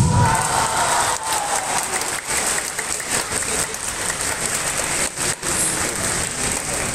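A kendo fighter's loud kiai shout with a strike, falling in pitch, followed by steady applause from the spectators as the point is awarded.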